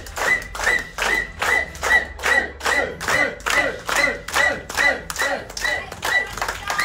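A group of people clapping in unison to a steady rhythm, about two and a half claps a second.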